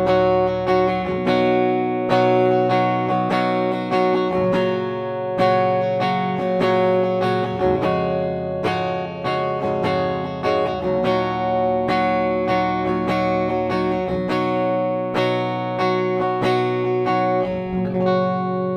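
Gibson SG Standard electric guitar played with a clean tone on the middle switch position, with both humbucking pickups mixed. Chords are strummed and notes picked one after another, and the last chord rings out near the end.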